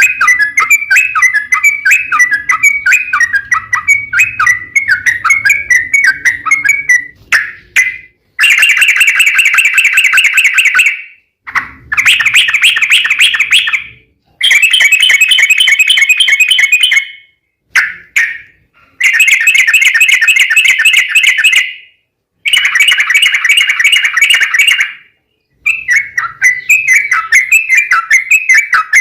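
Yellow-vented bulbul (trucukan) song: a run of quick warbled notes, then about five long, rapid rolling trills of two to three seconds each with brief breaks between, then quick warbled notes again near the end.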